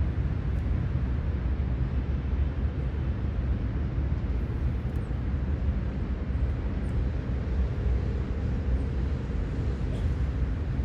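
Steady low outdoor rumble of city-park ambience, with a few faint, brief high chirps scattered through it.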